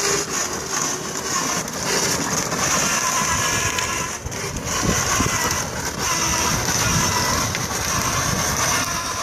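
Injusa 12-volt electric ride-on toy car driving along: its electric motors whining and its hard plastic wheels rolling on asphalt, with the rumble of wind and handling on the microphone.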